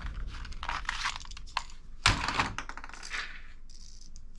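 Plastic toy guns clicking and clattering as they are handled and set down among others in a cardboard box, with a louder knock about two seconds in.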